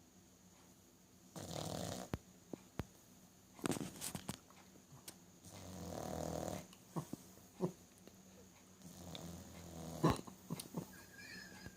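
French bulldog snoring in its sleep: four long snores a couple of seconds apart, with small clicks and snuffles between them.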